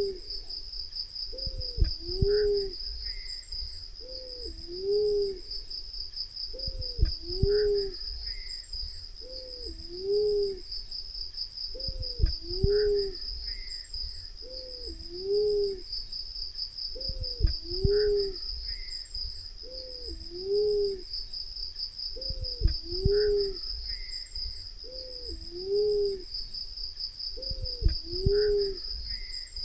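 Black-naped fruit dove cooing as a looped lure call: a two-note coo, the first note rising and falling, the second lower and hooked, repeated evenly about every two and a half seconds. A steady high-pitched pulsing buzz runs behind it, and a low thump comes with every second coo.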